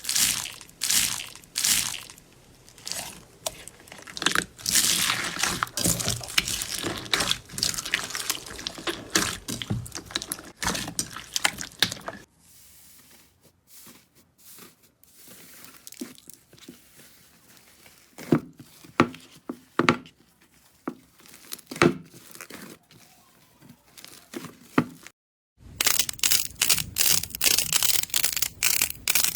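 Slime being squeezed, stretched and pressed by hand, giving dense crunchy crackling and tearing sounds. In the middle the crackling thins to scattered soft pops and squishes, then dense crackling returns after a sudden cut.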